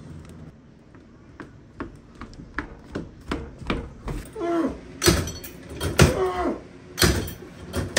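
Footsteps knocking on wooden boards, two or three a second and growing louder, then short muffled vocal cries that fall in pitch, between heavier thumps about a second apart.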